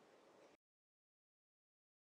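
Near silence: faint room tone for about half a second, then the sound drops out completely.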